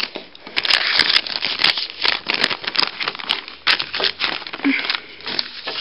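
A sheet of paper rustling and crinkling right against the microphone, with handling knocks: a dense run of short crackles and clicks.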